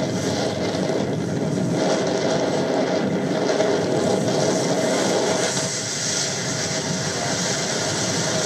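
Boat under way: a steady engine drone mixed with the rush of water churning along the hull, with a hiss that swells a little about two-thirds of the way through.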